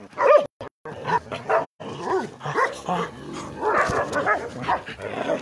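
Several dogs barking and yipping, with many short barks coming close together.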